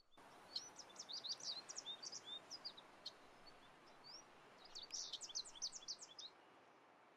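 Small songbird singing faintly: quick high chirps and trills in two bouts, the second starting about four and a half seconds in, over a soft background hiss.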